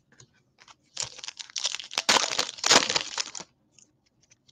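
A trading-card pack wrapper being torn open and crinkled by hand, a dense crackling rustle that starts about a second in and stops about a second before the end.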